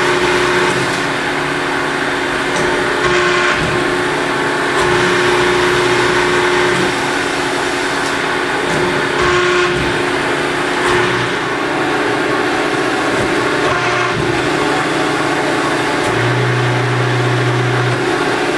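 Cincinnati Autoshape 175-ton CNC press brake running, a loud steady mechanical hum whose pitch shifts every few seconds as the machine works, with a deeper hum near the end.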